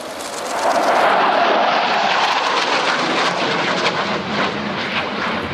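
F-35B Lightning II's single F135 turbofan engine at high power as the jet flies past in a hard, tight turn. The jet noise swells sharply about a second in, then holds loud with a ragged crackle.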